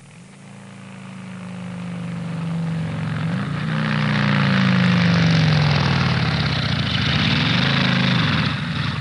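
1992 Ford F-150 pickup's engine running, growing louder over the first five seconds, its pitch rising and dipping a couple of times as the engine speed changes.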